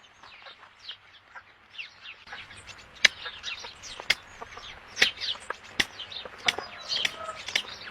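Birds chirping rapidly and continuously, with several sharp clicks or taps from about three seconds in.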